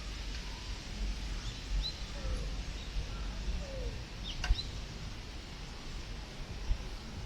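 Wind buffeting the microphone in a steady low rumble, with a few short bird chirps and one sharp click about four and a half seconds in.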